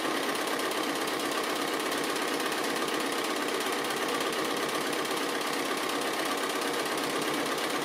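Bernina sewing machine with its BSR stitch-regulator foot, free-motion stitching with the feed dogs down, running steadily with a fast, even needle rhythm.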